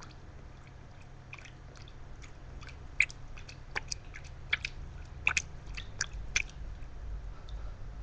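A run of light, irregular ticks and small splashes in a shallow plastic tub of water holding a baby bearded dragon. There are about a dozen over a few seconds, with the sharpest about three seconds in.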